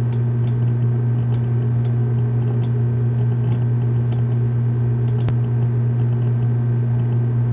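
Steady low hum, even in loudness, with faint scattered clicks about every half second.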